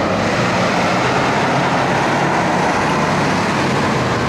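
Road traffic: a heavy truck's engine running low among cars, under a loud, steady, even hiss.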